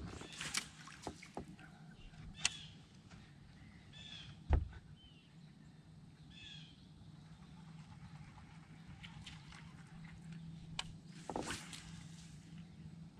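Quiet sounds of fishing from a bass boat's deck: a steady low hum, a few knocks with one dull thump about four and a half seconds in, and short high bird chirps. Near the end comes a brief swish of a rod being cast.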